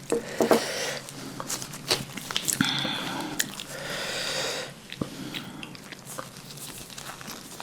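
Close-miked eating sounds: wet chewing, lip smacks and crunchy bites of black bean noodles and spicy kimchi.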